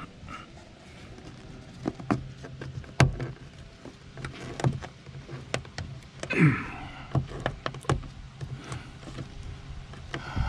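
Scattered clicks and knocks of hands working inside a car door, the sharpest about three seconds in, with a short falling sound about six and a half seconds in, over a steady low hum.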